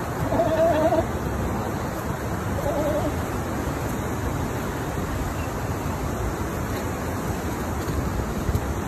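Steady rushing of river water. Near the start comes a short wavering call-like sound, and a fainter one follows about three seconds in.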